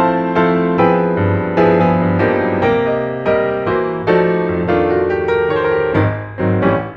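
Background piano music: chords and notes struck every half second or so, each ringing and fading.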